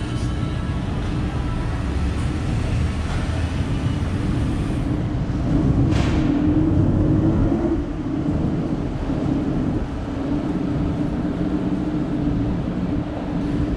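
City street traffic noise: a steady low rumble, a little louder for a couple of seconds in the middle, with one sharp click about six seconds in.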